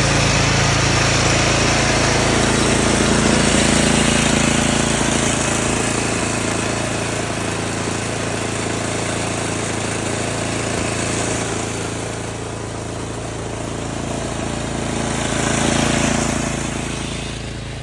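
An old snowblower's small gas engine running steadily under load, some 20 years old, with a broad rushing hiss over its low hum. It eases off about two-thirds of the way through, swells briefly near the end, then drops.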